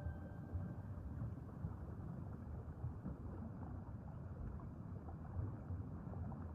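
Low, steady rumbling water noise of underwater ambience. The last tones of a music chord die away about half a second in.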